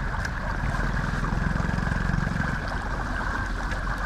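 Shallow floodwater rushing steadily through a narrow channel and splashing around a wader's legs, with a low hum for about a second in the middle.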